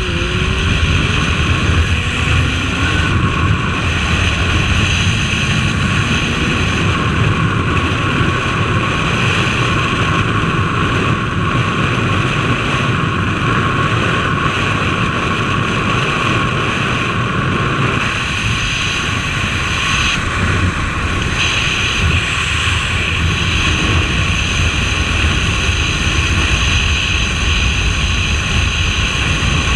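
Suzuki Bandit 1250S motorcycle running at road speed, its engine drone buried under steady wind rush over the microphone.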